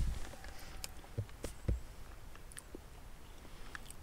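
A person chewing a Pepperami chicken tikka bite with the mouth closed: quiet chewing with a few faint, scattered mouth clicks.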